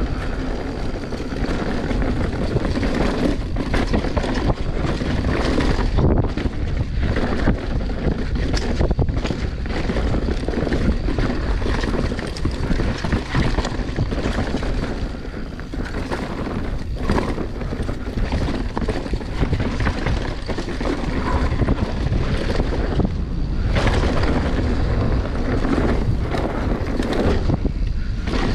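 Wind buffeting the microphone of a mountain bike ridden down a trail, mixed with tyre noise and frequent rattles and knocks from the bike over rough ground.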